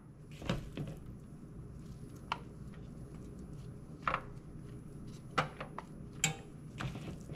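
Gloved hands pressing sticky dough pieces into a metal bundt pan: soft handling noises with a few scattered light taps and clicks against the pan.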